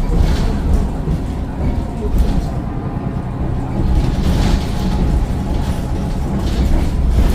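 Mercedes-Benz Citaro O530 bus running with its Daimler OM906 6.4-litre diesel engine, a steady low rumble with a few short rattles.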